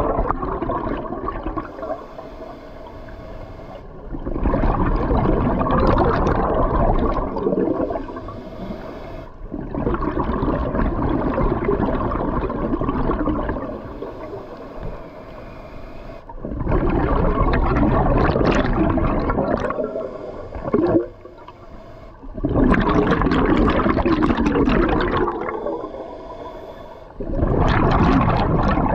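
Scuba diver's regulator breathing underwater: long bubbling exhalations of three to four seconds each, about five of them, with quieter inhalations between.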